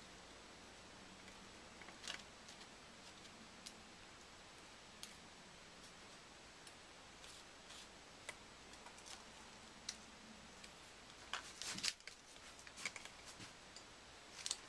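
Faint crinkling and clicking of a paper dollar bill being folded and handled by hand, in scattered small crackles. A louder flurry of crinkles comes about eleven to twelve seconds in, and another just before the end.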